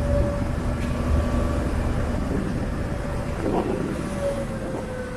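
Car ferry's engines running with a steady hum over a low rumble, the hum sagging slightly in pitch near the end.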